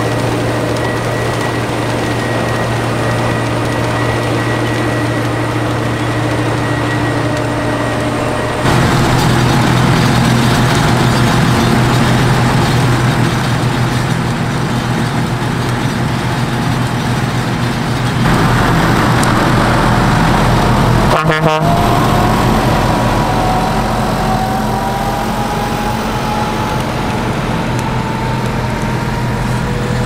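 Diesel engines of a Dewulf Kwatro self-propelled potato harvester and its tractors running steadily under load, the sound changing abruptly about a third of the way in and again past the middle. After a brief drop-out, a whine rises slowly in pitch over the last third as a tractor pulling a trailer speeds up.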